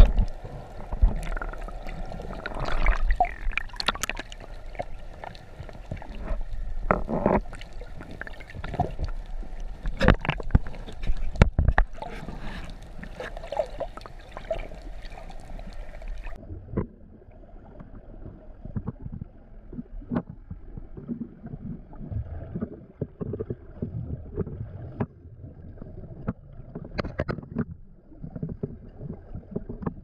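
Muffled underwater sound picked up by a camera in its housing: water rushing and bubbling, with many sharp crackles and knocks. About halfway through it cuts to an even duller, more muffled bubbling with the high end gone.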